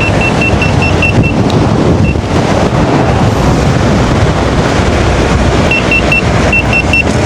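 Heavy wind rushing over the microphone on an electric unicycle ridden at high speed. Over it come rapid high-pitched warning beeps, about five a second, in a run at the start and again near the end. This is the speed alarm the rider keeps getting as a safety-margin warning.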